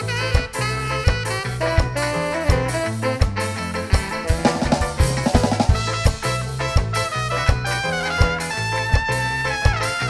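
Instrumental ska music: a horn section playing a melody over a steady bass and drum-kit beat, with a quick drum roll about halfway through.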